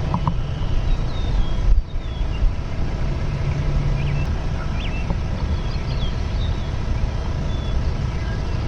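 Wind buffeting the microphone, a steady low rumble, with faint short chirps of small birds calling now and then.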